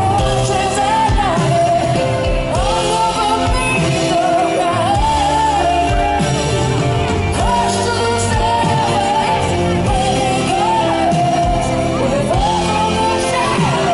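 Live band playing a pop song, with a wavering lead melody line over sustained chords and bass.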